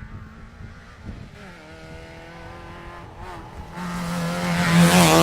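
Rally car approaching at speed on a special stage, its engine note growing louder as it nears and loudest near the end as it reaches the spot.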